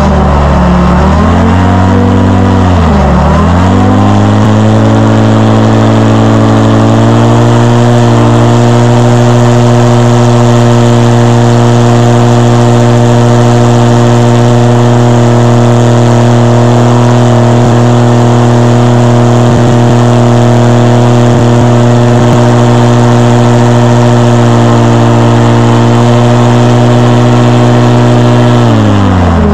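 Airboat's Yamaha Apex four-cylinder engine and Whirlwind propeller. The throttle is eased off and opened up twice in the first few seconds, then the engine runs up to high revs and holds there steadily for about twenty seconds, dropping back as the throttle is cut near the end.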